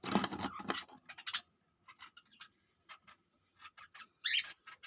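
Lovebirds scratching and shuffling in their nest, heard as scattered light scratches and ticks, with a denser scratchy flurry at the start and a short high rustle about four seconds in.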